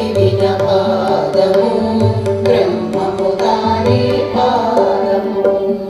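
Background music in an Indian classical style: hand drums playing over a steady drone, with melodic instrument lines.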